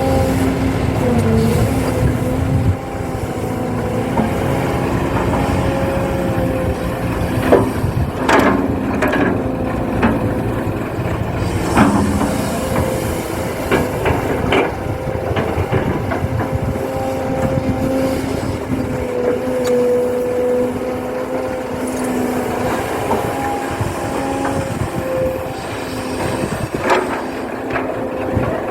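Huina radio-controlled excavator working: its small electric motors give a steady whine that shifts in pitch now and then, with scattered knocks and scrapes from the digging.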